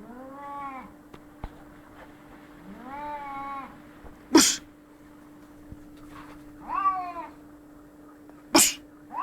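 Cats in an aggressive standoff: three drawn-out yowls, each rising then falling in pitch, with two short, sharp spits between them that are the loudest sounds.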